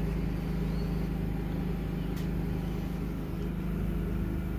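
Steady low mechanical hum from a running machine, unchanging throughout, with a single light click about two seconds in.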